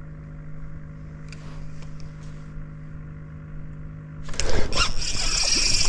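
A trolling motor's steady low hum. About four seconds in, a much louder hissing, crackling noise with a high whine suddenly breaks in over it.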